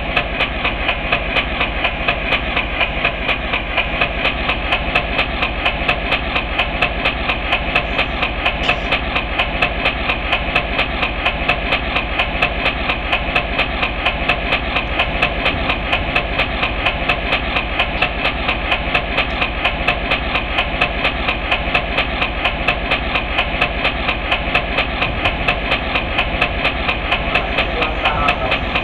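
Railroad crossing warning bell ringing steadily with fast, evenly spaced strikes.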